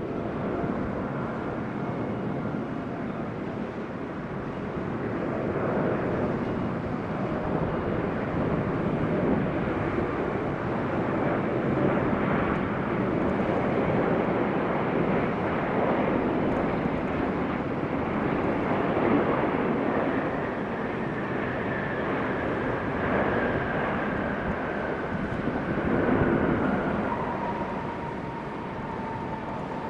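Boeing 747-8F's four GEnx turbofan engines as the freighter lands close by: a loud, steady jet rumble that swells and eases, with a faint whine slowly falling in pitch in the last third.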